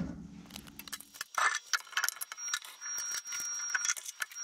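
Precision Matthews 1440TL metal lathe's motor hum stops about a second in. Then come sharp metal clinks and rattling as the chuck key is fitted and worked in the lathe chuck, with a thin steady high tone through the second half.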